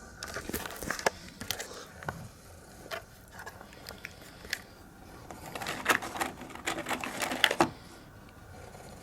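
Crisp crackling and crunching of dry Jagariko potato snack sticks and their paper cup being handled, in two bouts, the second louder and ending suddenly near the end.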